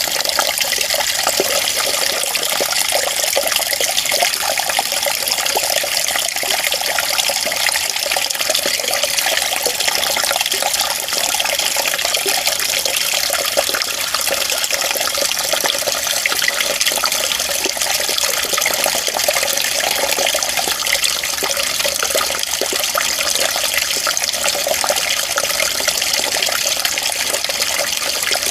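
Running water, a steady even rush with no breaks or changes.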